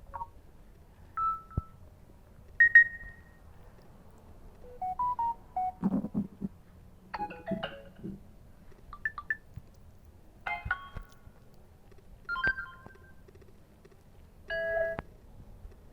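Samsung Galaxy A01 Core phone speaker playing a run of short notification sounds one after another: about ten brief chimes and little clusters of notes at different pitches, with short gaps between them.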